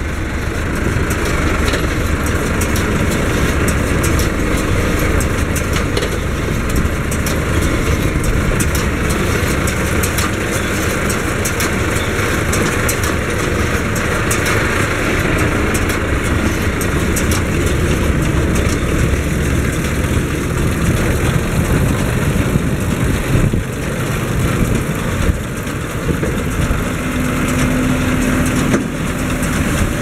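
Farm tractor engine running steadily with a rumbling idle while hitched to a round baler. Near the end a steady hum comes in as the baler's tailgate is raised.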